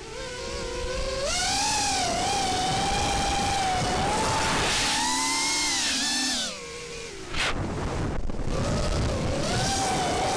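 5-inch FPV quadcopter's brushless motors and propellers whining, the pitch rising and falling with the throttle. The whine drops away about six and a half seconds in as the throttle is cut, then climbs back about a second later.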